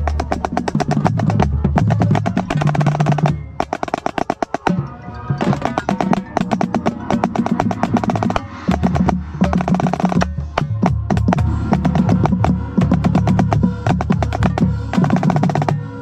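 Marching snare drum played in fast, dense rhythmic patterns and rolls, heard close up from the player's head, over sustained low chords from the rest of the band. The drumming thins out and drops in level for a moment about four seconds in.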